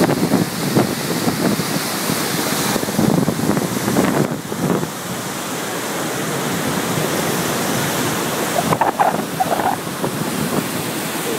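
Floodwater from heavy rain rushing through a river dam, a loud steady rush of water, with gusts of wind buffeting the microphone in the first few seconds.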